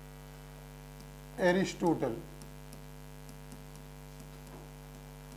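Steady electrical mains hum, a stack of even tones that runs unchanged, with a man's voice speaking briefly about a second and a half in. A few faint light ticks follow.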